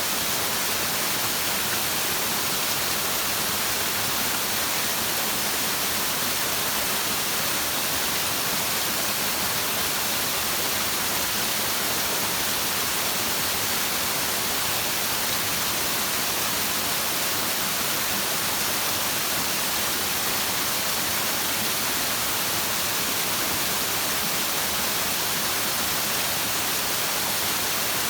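Flowing stream, a steady rushing of water with no splashes or changes, brightest and hissiest in the treble.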